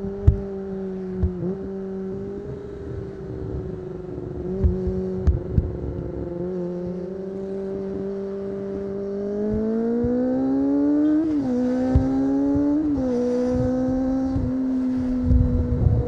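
Kawasaki ZX25R's 250 cc inline-four through an Akrapovic exhaust, heard onboard: running at steady revs for about nine seconds, then revving up twice with a brief drop in pitch between, like quick upshifts, and settling on a steady higher note. Short low thumps come and go throughout.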